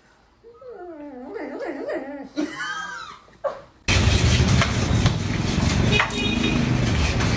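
A dog whining and yowling in drawn-out, wavering cries for about three seconds. About four seconds in, the sound cuts suddenly to a much louder, steady rumbling noise with scattered clicks.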